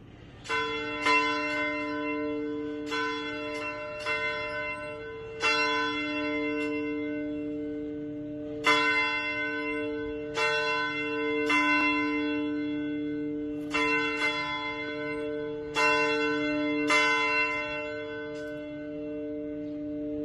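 Bells struck one after another in an uneven pattern, starting about half a second in, a strike every one to two seconds with a few longer gaps. Each note rings on and overlaps the next, on a few repeated pitches.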